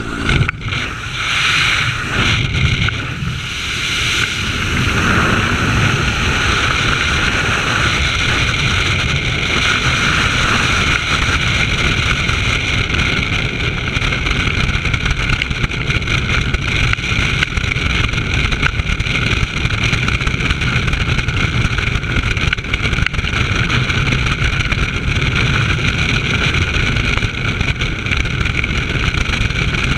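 Freefall wind rushing over a skydiver's head-mounted camera, loud and gusty for the first few seconds after the exit, then a steady rush.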